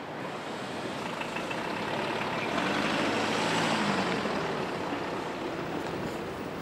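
Street noise with a motor vehicle's engine that grows louder through the middle and then fades, as it passes through the square.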